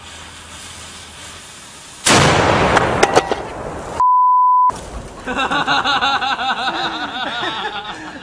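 A small wheeled cannon fires once about two seconds in, a sudden loud blast with a trailing echo, after a faint hiss from its lit fuse. A little later a steady censor bleep sounds for under a second.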